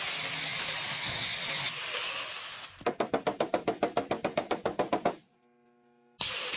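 A steady hiss, like air or a spray, then a rapid, even run of about twenty sharp knocks at roughly ten a second. The knocks stop abruptly, there is a second of near silence with a faint hum, and the hiss starts again near the end.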